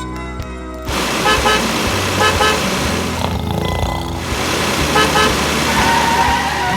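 Car horn giving short double toots, three times a few seconds apart, over background music.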